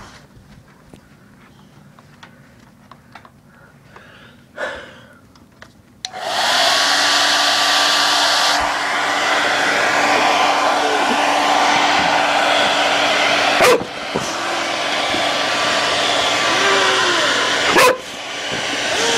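Hand-held hair dryer switched on about six seconds in, then running steadily with a loud rushing blow. Twice it is interrupted by a sharp click or knock, each followed by a brief dip in its level.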